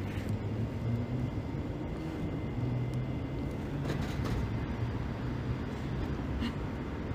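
Steady low rumble of background noise with a faint steady high tone, and a few faint clicks about four seconds in.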